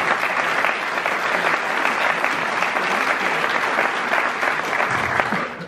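Audience applause: many people clapping at once, a steady, dense patter that breaks off shortly before the end.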